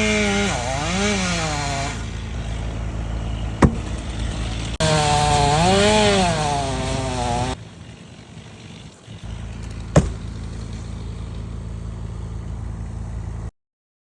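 Chainsaw cutting into a maple limb, its engine pitch dipping and climbing back twice as the chain loads in the cut, over a steady lower engine drone. Two sharp knocks stand out, then the sound drops to a quieter steady drone and cuts off near the end.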